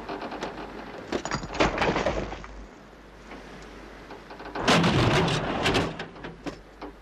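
A car's body creaking and grating as it rocks, balanced on a cliff edge, in two bouts of scraping with sharp clicks: about a second in and again near five seconds, over a low rumble.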